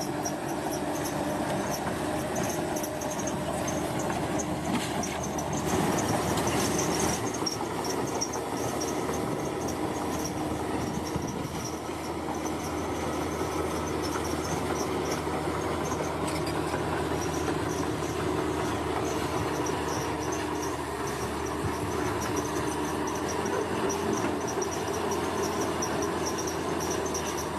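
Komatsu bulldozer's diesel engine running steadily under work, with insects chirping in a high, pulsing trill behind it.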